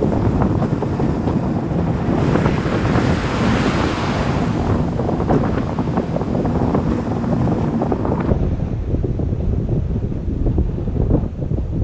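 Surf breaking and washing on a sandy beach, with wind buffeting the microphone in a steady low rumble. The wash swells louder a couple of seconds in and eases off again.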